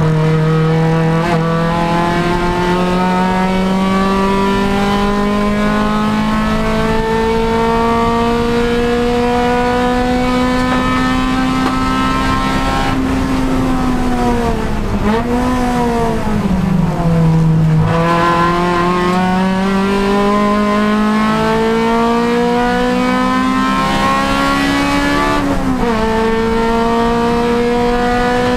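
Honda Civic Si race car engine at full throttle, its pitch climbing slowly through a long pull in one gear. About 13 s in it backs off for braking, with a couple of quick rev blips on the downshifts, then climbs hard again from about 18 s and upshifts near the end.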